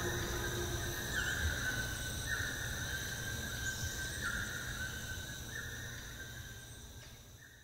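Night-time forest ambience: steady high-pitched insect trilling, with a short call repeating every second or two, fading out near the end.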